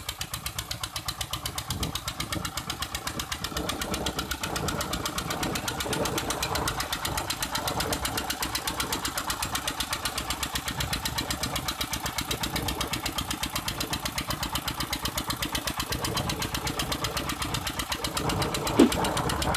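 Diesel engine running steadily, belt-driving a gearbox on a water-pump rig, with an even, rapid knock of firing strokes. A single sharp click stands out near the end.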